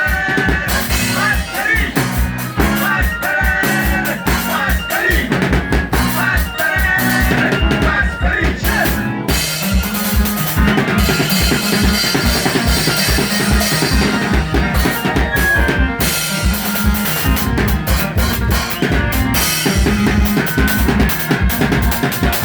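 Band music: a drum kit keeps a steady beat under a bass line and a melodic lead, growing fuller with more cymbal about nine seconds in.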